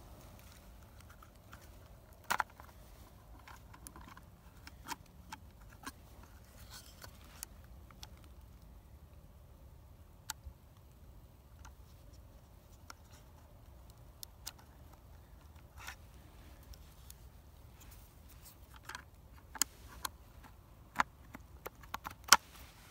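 Scattered sharp clicks and small knocks of a trail camera's plastic case being handled, its cover opened and its buttons pressed, a second or two apart, the loudest about two seconds in and twice near the end.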